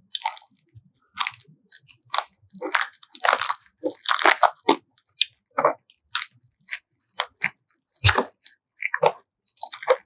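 Flexible aluminium foil duct hose crinkling and crunching as it is handled and pushed onto a fitting, in short irregular crackles.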